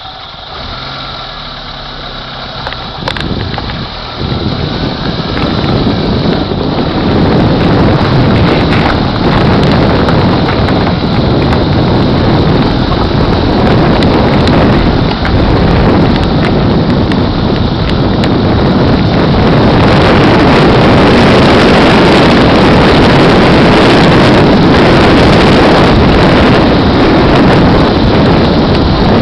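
Heavy wind noise on the microphone of a moving vehicle. It rises over the first several seconds as speed builds, then holds loud and steady, covering the vehicle's own running sound.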